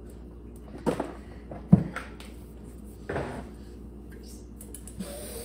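A few short knocks and rustles as a puppy jumps up for treats on a tile floor, the loudest a sharp knock a little under two seconds in.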